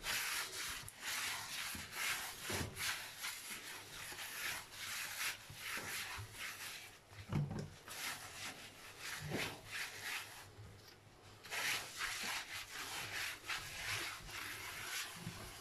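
A cloth scrubbing a soaped kitchen surface by hand: runs of repeated rubbing strokes, with a short pause about two-thirds of the way through.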